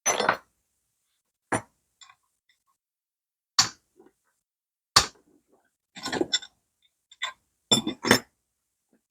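Metal clinks and knocks of hand tools and engine parts being handled while the engine's top end is taken apart. They come as about eight separate sharp strikes spread over the seconds, with quiet between them.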